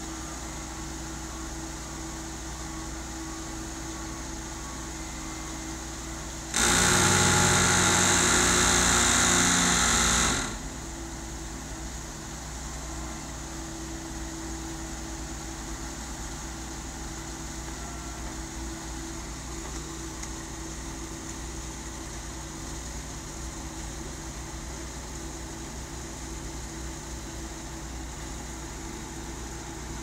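Tuckerbilt T630 concrete carrier's diesel engine running steadily at idle, heard from the operator's seat. About six and a half seconds in, a much louder burst of noise lasts about four seconds, then cuts off.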